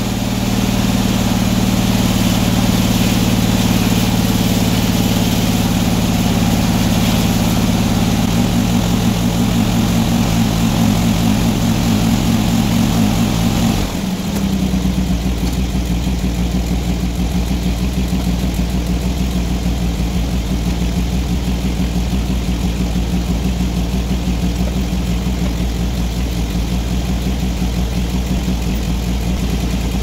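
Circular sawmill running, its large head saw cutting through a log. About halfway through the cut ends with a brief dip, and the saw and its drive settle to a lower, steady running hum.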